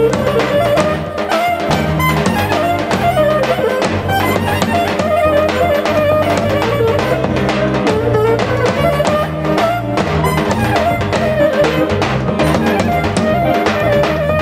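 Live Greek folk dance music: a clarinet plays a wavering, ornamented melody over accordion and a steady drum beat.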